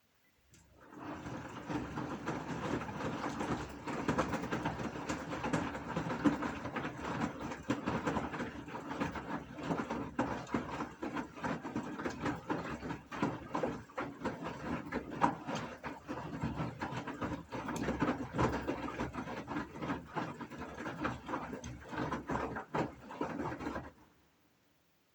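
Gorenje washing machine running, with a dense, irregular rattling full of clicks and knocks. It starts about a second in and stops abruptly about a second before the end.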